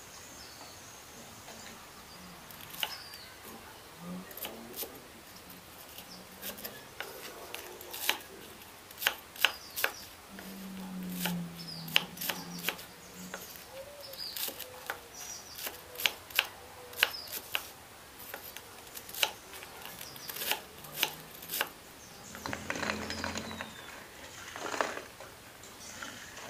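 Cleaver chopping fried breaded pieces on a wooden board: a sharp knock with each cut, irregular, about one or two a second. A few seconds before the end comes a longer scraping as the chopped pieces are pushed off the board.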